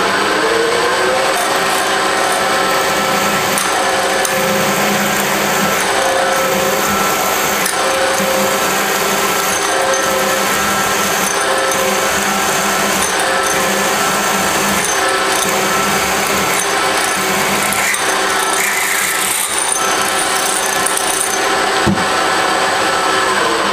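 Machine spindle driving a 3/8-inch drill bit into a steel block: the motor spins up at the start and runs with a steady hum, and high cutting noise comes and goes as the bit bites into the steel. The motor winds down near the end.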